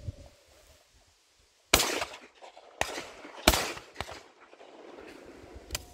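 Shotguns firing at flying partridges: two loud shots about a second and three-quarters apart, each trailing off in a brief echo, with fainter sharp cracks between and after them.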